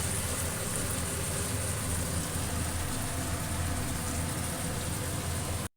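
Vegetables frying in oil in a kadai, a steady sizzle with a constant low hum under it, as the ground spice mix goes in. The sound cuts off abruptly near the end.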